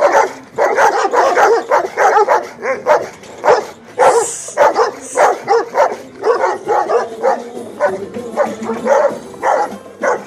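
Rottweiler and Kangal-cross dogs barking and yelping in quick succession, about two to three calls a second, as a reaction to a folk song being played to them.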